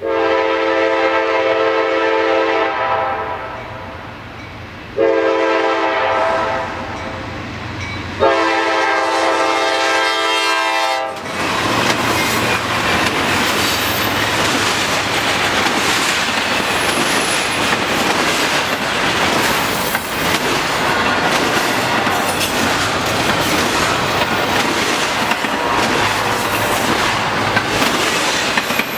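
Freight locomotive horn on the leading GE C44-9W giving a long, a short and a long blast, the end of the long-long-short-long grade-crossing signal. About eleven seconds in the horn stops, and the locomotives and intermodal cars go by loudly with rumbling and clattering wheels.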